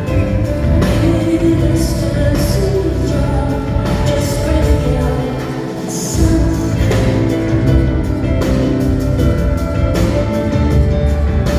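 Live concert music: a woman singing over a band with heavy bass. The bass drops out briefly about halfway through and comes back in with a hit.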